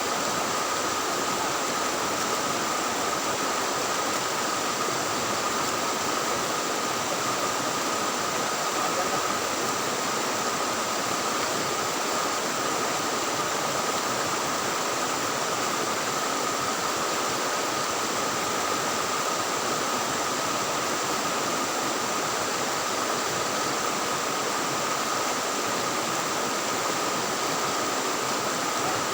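Fast-flowing river water rushing steadily, with a thin steady tone running above it.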